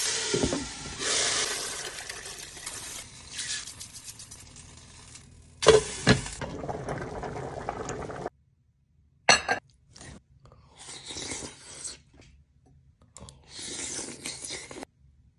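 A wooden spatula stirring meat and vegetables sizzling in a non-stick pot, with two loud knocks about six seconds in. After a sudden cut, a person eating rice soup off a spoon, with short spurts of slurping and chewing.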